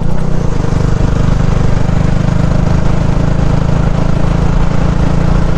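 Yamaha R15 V3 motorcycle's single-cylinder engine running at a steady cruise, its pitch and loudness holding even.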